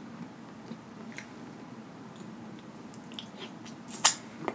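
Close-miked mouth and eating sounds: a few small wet clicks, then a sharp smack about four seconds in as a small boiled potato dipped in sauce goes into the mouth and is bitten.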